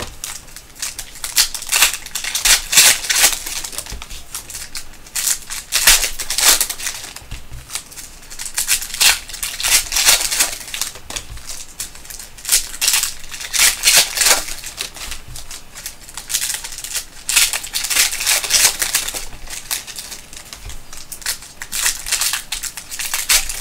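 Foil wrappers of Panini basketball card packs crinkling and crackling in repeated bursts as packs are torn open and the cards inside handled.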